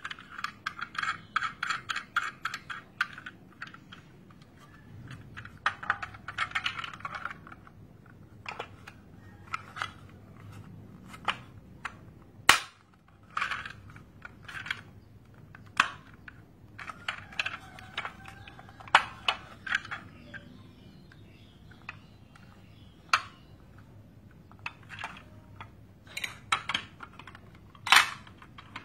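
Plastic toy parts being handled and fitted together. There is a rapid run of clicking at the start and again around six seconds, then scattered sharp plastic clicks and snaps. The loudest snaps come about halfway through and near the end, as plastic building bricks are pressed onto the toy dump truck.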